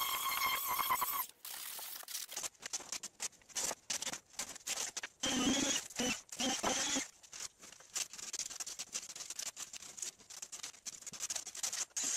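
A power sander's motor whines for about a second. It is followed by irregular, broken scraping and rasping as the inside corner of a foam-and-epoxy seat and its puttied fillets are sanded. A pitched motor whine comes back briefly about five seconds in.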